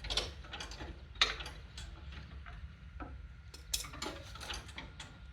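Scattered metallic clicks and clinks from hand tools working loose the clips and pins on a riding mower's belt and cable linkage, with a sharper knock about a second in and another past three and a half seconds.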